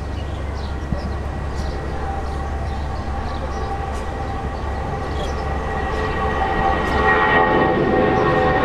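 Jet airliner engines running in the distance: a steady roar that swells over the last couple of seconds as several high whining tones come in.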